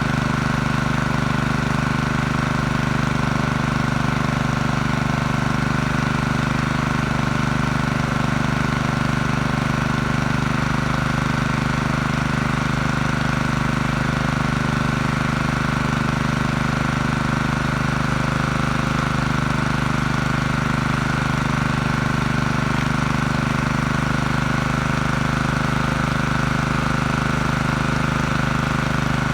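Generator's Honda GX160 single-cylinder four-stroke engine running at a steady speed, its carburettor freshly cleaned.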